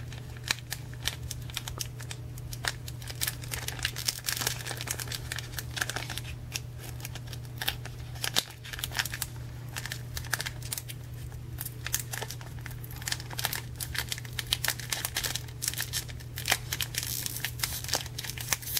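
Foil wrapper of a vintage Team Rocket Pokémon booster pack being slowly peeled open at its crimped seal: irregular crinkling with many small crackles and clicks. A steady low hum sits underneath.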